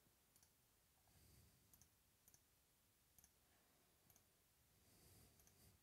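Near silence: room tone with several faint, scattered clicks.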